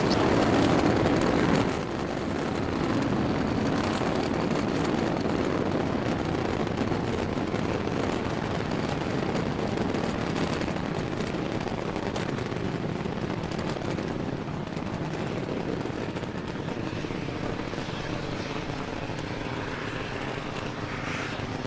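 Falcon 9 first stage's nine Merlin engines during ascent: a steady rumbling rocket noise that drops a step about two seconds in, then fades slowly as the rocket climbs away.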